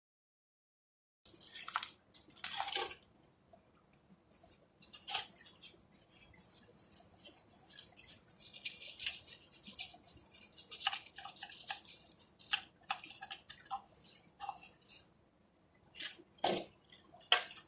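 Hand work on small engine parts: a stretch of scrubbing with a brush and scattered light taps and clinks.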